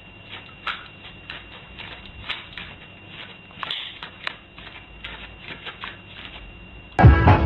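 A dog's claws clicking and tapping irregularly on a hard floor, light taps several times a second over a faint steady hum. Near the end, loud music with a dog barking cuts in suddenly.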